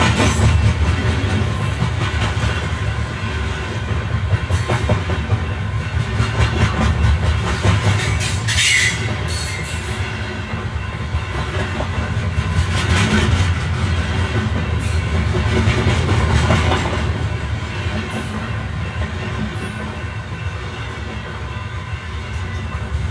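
Camera drone's motors and propellers running with a steady hum, heard on its own on-board camera, with wind buffeting the microphone.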